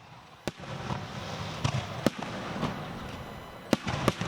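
A fireworks display: sharp shell bursts, the loudest about half a second in, about two seconds in and twice near the end, with softer bangs between them over a steady rumble.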